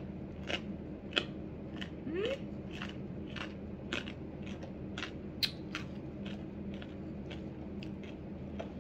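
Crisp fried bacon being nibbled and chewed, a run of sharp crunchy clicks about twice a second, with a short rising squeak about two seconds in and a steady low hum underneath.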